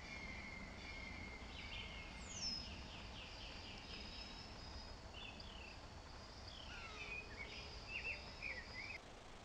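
Faint outdoor background with wild birds calling: a quick run of repeated high notes and a short falling whistle about two seconds in, then scattered chirps in the last few seconds.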